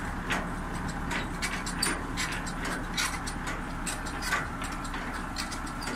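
Semi-trailer landing legs being wound down by hand crank, with repeated irregular clicks from the crank gearing, over the steady hum of the prime mover's engine idling.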